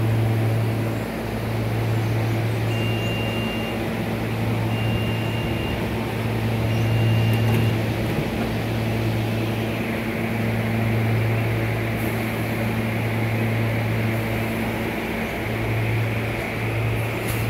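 SEPTA electric regional rail train standing at the platform, its onboard equipment giving a steady low hum. Three short high beeps sound about a second apart in the first half. A hiss builds from about halfway as the train begins to pull out.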